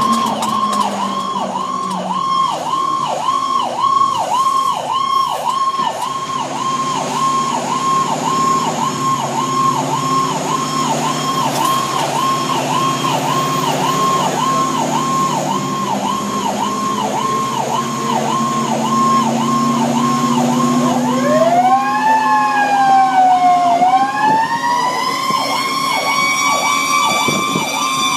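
Fire engine's siren heard from inside the cab, sweeping rapidly up and down about twice a second, over the truck's engine running steadily underneath. Just past two thirds of the way in, a second siren tone winds up, dips briefly, then climbs again and holds a high wail alongside the first.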